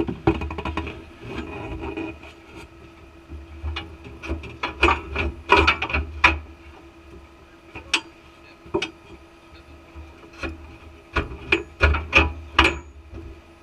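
Off-road vehicle on a rocky hill climb: engine running low and steady under a string of sharp knocks and scrapes, thickest about five seconds in and again near the end.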